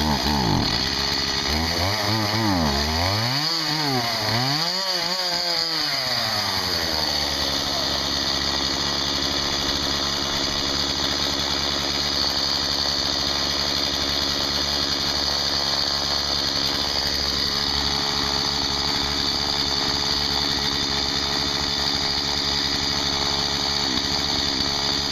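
Small two-stroke chainsaw engine revved up and down several times, then settling into a steady idle, with a short rev again near the end.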